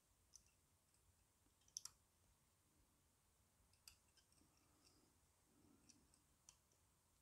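Near silence with a few faint, scattered clicks of small pliers against a thin blackened wire fitting as it is pushed into place with its deadeye.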